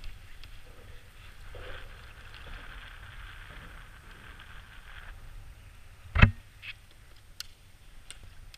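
Wind rumbling on the microphone and water moving around a plastic fishing kayak, with a steady hiss that cuts off about five seconds in. About six seconds in comes a single hard thump, the loudest sound, followed by a few light clicks.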